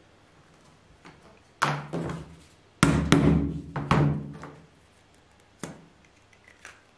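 Hammer tapping a small nail into a thin wooden strip lying on a table: a handful of sharp knocks, loudest and closest together in the middle, then two lighter ones.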